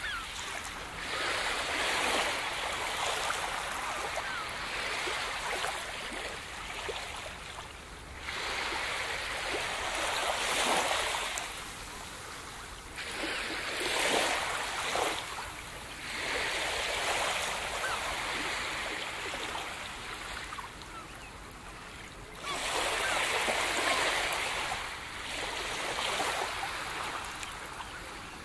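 Ocean surf washing in and out, a hissing wash that swells and fades every few seconds.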